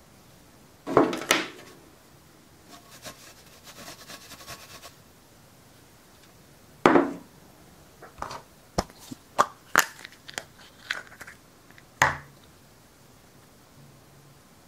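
Hands handling small objects on a wooden table. There are sharp knocks about a second in, near the middle and again near the end, with soft rustling between them and a quick run of small taps and clicks in the second half.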